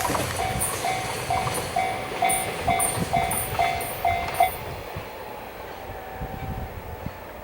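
Japanese railway level-crossing warning bell ringing about twice a second over the fading rumble of a passing limited express train. The bell stops about four and a half seconds in as the crossing clears.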